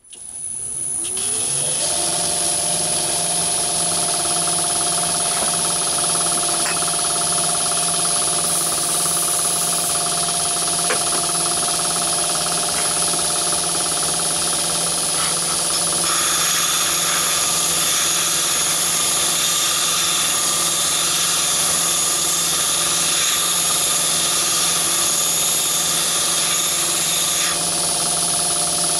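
Myford ML7 lathe on its variable-speed drive spinning up with a diamond cup lapping wheel in the chuck, rising in pitch over the first second or two, then running steadily at about 1075 rpm. It gives a steady motor and drive hum with a high-pitched whine.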